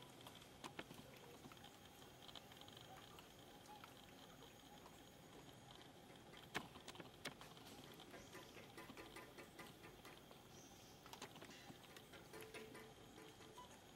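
Near silence: faint outdoor ambience with a few scattered sharp clicks, and a quick run of faint ticks in the second half.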